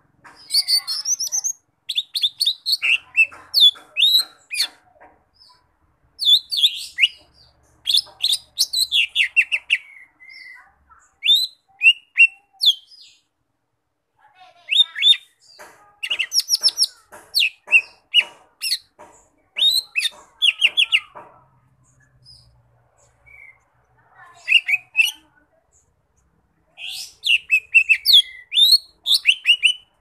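Caged leafbird (cucak ijo mini) singing vigorously in bursts of quick, varied chirps and sliding whistles, with short pauses of a second or two between phrases.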